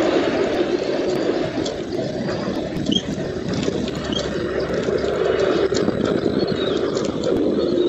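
Steady rushing noise on a bald eagle nest camera's outdoor microphone, with two faint short high chirps about three seconds in and a few light clicks.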